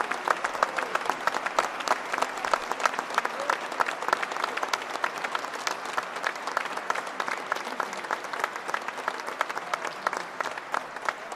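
Crowd applauding: many hands clapping in a dense, steady patter.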